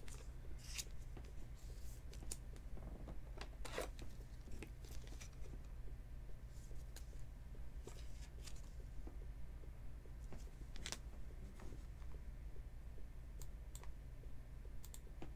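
Foil trading-card pack wrapper crinkling as it is torn open, and stiff chrome cards clicking and sliding against each other as they are handled, in scattered faint crinkles and sharp clicks over a low steady hum.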